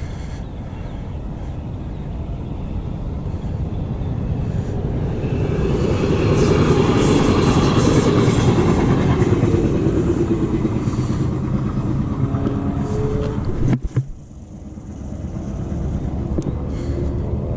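A motor vehicle passing close by, its rumble growing louder to a peak about halfway through and then fading, followed by steady traffic rumble after a sudden break near the end.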